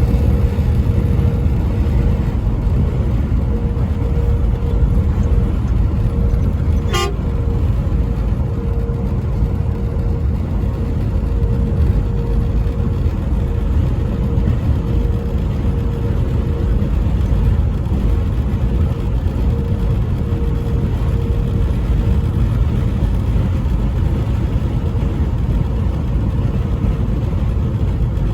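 Steady low road rumble of a vehicle driving on a highway, heard from inside. A faint, steady, even tone runs under it and fades out about 22 seconds in, and a single sharp click comes about seven seconds in.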